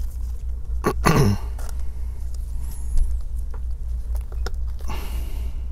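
A steady low hum with a few faint small clicks of a pry tool working at a laptop battery connector, and a short cough-like throat sound about a second in.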